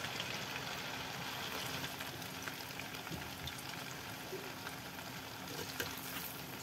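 Chicken kabab patties deep-frying in hot oil in a steel kadhai: a steady sizzle with many fine crackles.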